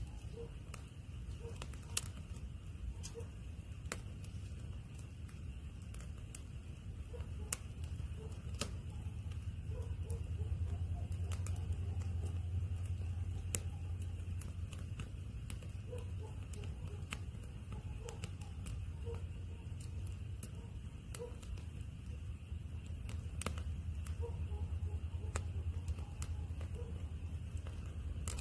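Firewood burning in a homemade perforated-can fire pit: irregular sharp crackles and pops a second or few apart over a steady low rumble that swells twice.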